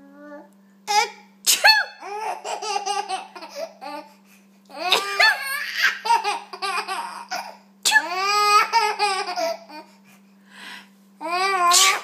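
A woman sneezes several times, and after each sneeze a baby bursts into rhythmic, high-pitched laughter. A faint steady hum runs underneath.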